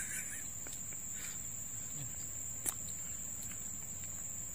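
Insects droning steadily at one high pitch, with a single sharp click about two and a half seconds in.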